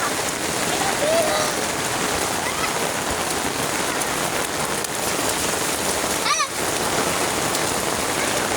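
Heavy rain falling steadily. About six seconds in there is a brief high-pitched squeal.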